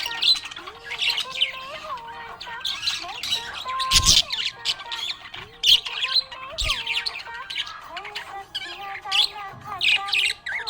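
Budgerigar chirping and squawking in quick repeated bursts, over background music carrying a held, sliding melody. A sharp knock comes about four seconds in, and a smaller one near seven seconds.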